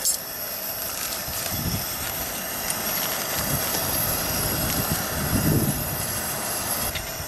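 Coleman propane camp stove burner running under a saucepan with a steady hiss, with two brief low rumbles.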